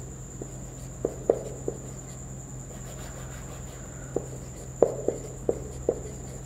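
Marker pen writing on a whiteboard: a string of short, irregular squeaks as the strokes are drawn, a few around a second in and a denser run between about four and six seconds in, over a steady high whine and low hum.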